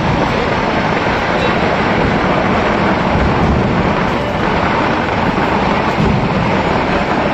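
Dense barrage of temple-festival firecrackers exploding in rapid succession, the blasts running together into one steady, loud rumble with a crackling texture.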